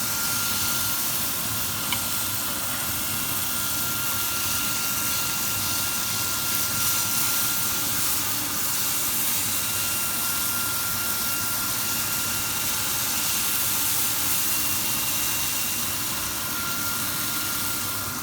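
Chicken pieces frying in hot oil in a pan: a steady, loud sizzle, with a faint steady high whine underneath.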